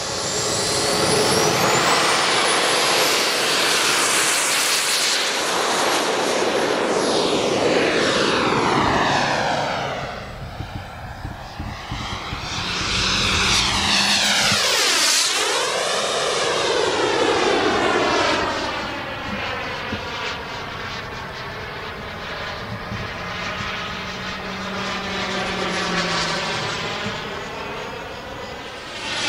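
Small gas turbine engine of a Super Scorpion RC jet: a rising whine in the first few seconds as it throttles up, then running at high power in flight. The sound swells and fades as the jet makes a pass about halfway through, and swells again near the end.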